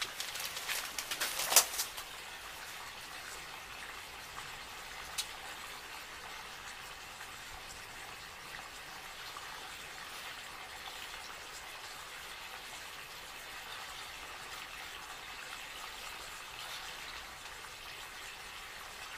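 Steady faint background hiss, with a quick run of sharp clicks in the first two seconds and one more click about five seconds in.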